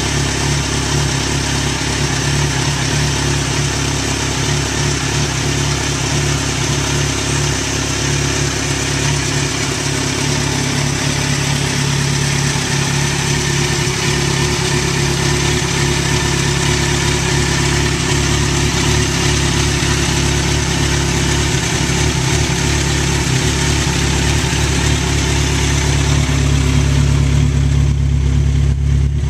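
Kawasaki Z1000SX's inline-four engine idling steadily through an aftermarket slip-on exhaust, with no revving. Near the end the low exhaust note grows louder and deeper.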